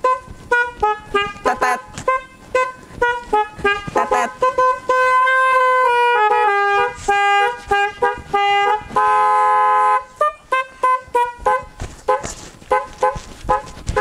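Telolet musical air horn with snail-shaped (keong) trumpets, driven by a DAV musical horn module, playing a melody of quick short horn notes. A few longer notes are held, and about nine seconds in several horns sound together in a brief chord.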